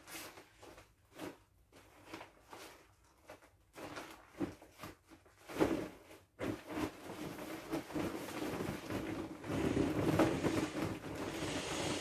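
Vinyl of a deflating inflatable swim ring being squeezed and folded: scattered squeaks, rubs and taps at first, then about halfway through a denser, steadier rustling as it is pressed down.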